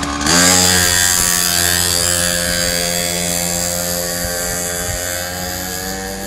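Polini pocket bike's small two-stroke engine revving hard, its buzz rising in pitch in the first half-second and then holding at high revs while slowly fading as the bike pulls away.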